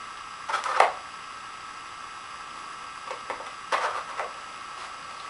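Plastic dog puzzle toy (Nina Ottosson Dog Twister) clicking and clattering as it is nosed and handled: a few short knocks about half a second in, then another group of clicks around three to four seconds in, over a steady hiss.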